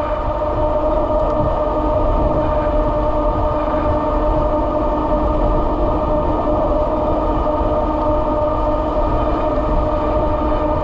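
Kepler e-bike's electric motor whining steadily at about 33 mph, in several even tones, over a low rush of wind on the microphone.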